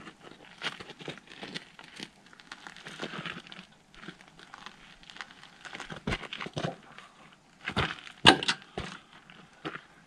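Motorcycle luggage being handled and taken off by hand: bags rustling and crinkling, with scattered knocks and scrapes. The loudest knocks come around eight seconds in.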